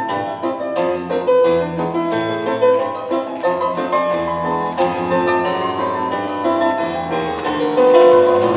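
Instrumental music led by piano, playing a busy melody at a steady loud level.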